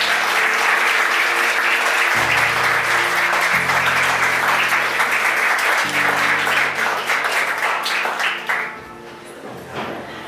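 A roomful of people clapping, dying away about eight and a half seconds in. Soft background music with slow held chords plays underneath.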